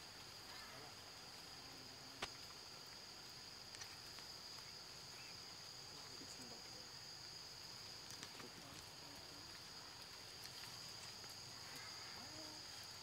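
Faint, steady high-pitched drone of forest insects such as cicadas or crickets, with a single sharp tick about two seconds in.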